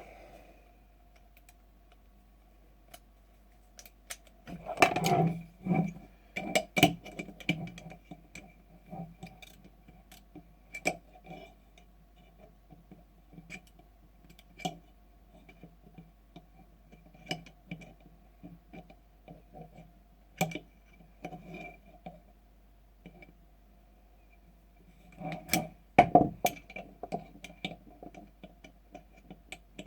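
Clicks, knocks and rattles of a G&G GR25 DMR airsoft rifle being stripped down by hand, its parts handled and set down one after another. The sounds come irregularly, with busier clusters about four to eight seconds in and again around twenty-five seconds in, and scattered lighter ticks between.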